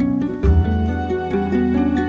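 Background music: a gentle melody of plucked-string notes over a low held bass.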